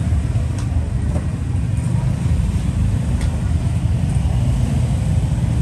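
Steady low rumble of background road traffic, with a few faint ticks.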